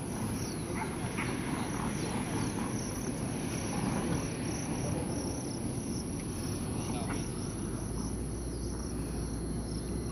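Outdoor insect chorus: a steady high-pitched trill, with a faster pulsing buzz just below it, over a low rumble.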